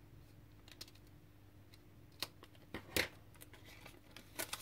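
Scissors snipping through the protective paper taped around a decal sheet, with paper handling: a few sharp, separate snips and clicks, the loudest about three seconds in.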